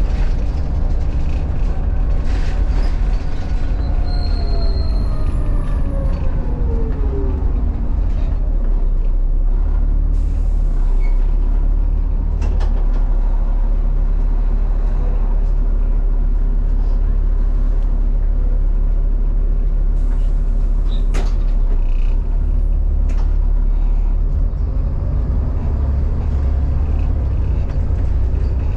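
Volvo B7 double-decker bus's diesel engine running steadily on the move, heard from inside the passenger saloon as a deep drone. About three seconds in, a whine falls in pitch over a few seconds, and a couple of sharp knocks come about two-thirds of the way through.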